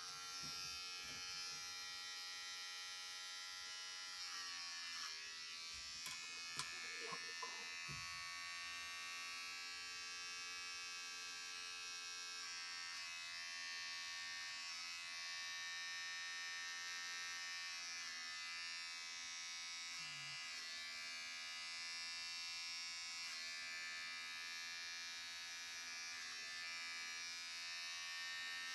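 Electric hair clippers switch on and run with a steady buzz while cutting short hair. The pitch sags briefly about four seconds in.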